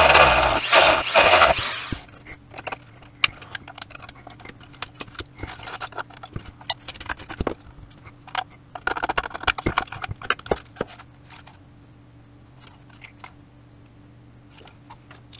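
A small power tool cutting into the plastic casing of a Siemens VDO BSM fuse box stops about two seconds in. Then come scattered clicks and scraping of hard plastic as the cut-out panel is pried loose and handled, over a faint steady hum.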